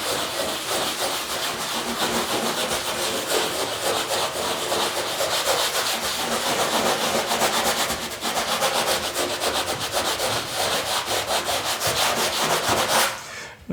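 Sanding sponge rubbed lightly back and forth over a drywall joint-compound patch: a steady scratchy rubbing in quick, even strokes, with a brief pause about eight seconds in, stopping just before the end.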